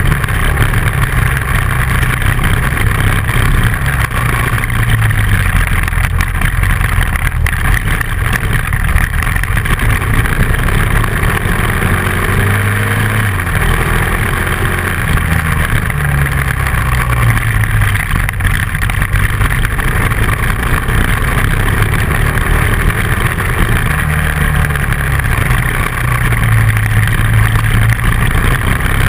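Dual-sport motorcycle engine running under way on a gravel road, its pitch rising and falling with the throttle, under a steady rushing noise of wind and tyres.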